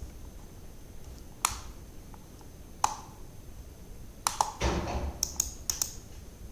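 Computer mouse clicking: single clicks a second or so apart, then a quicker run of about half a dozen clicks over the last two seconds, with a soft low thump among them.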